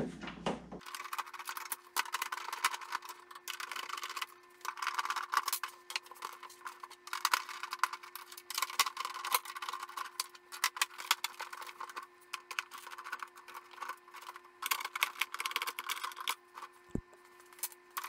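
Irregular clusters of clicks and ticks from a hand screwdriver backing screws out of a portable air conditioner's plastic back casing. The sound is thin and tinny, with almost no low end.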